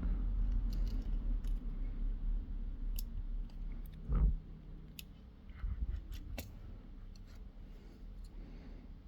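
Scattered small clicks and taps of hand tools on electronics work, with a low hum in the first half that fades and a single heavier thump about four seconds in.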